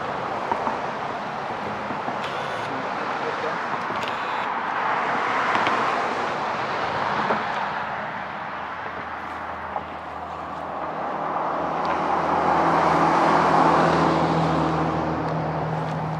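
Road traffic: two vehicles pass by, one about five seconds in and another about twelve to fourteen seconds in, with a steady low engine hum from about eleven seconds on.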